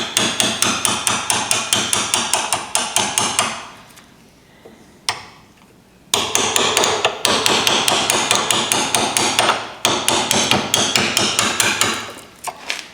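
Hammer blows driving a newly forged chisel into wood, in quick runs of about four strikes a second. The blows pause for a couple of seconds partway through, with a single strike in the gap.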